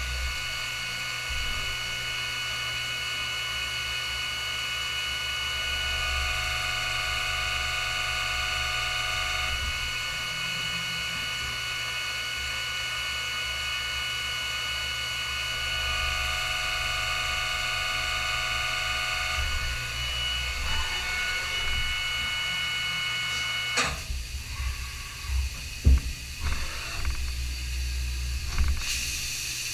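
Haas ST-20SSY CNC lathe machining stainless steel bar stock under flood coolant: a steady machine whine made of several tones over a low hum. The whine cuts off with a click about three-quarters of the way through. A few irregular clunks follow as the tool turret moves to the next tool, and a hiss of coolant spray starts near the end.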